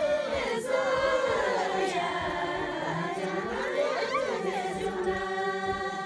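A group of women singing a Karmarong folk song together, unaccompanied, their voices sliding between notes and then holding long steady notes near the end.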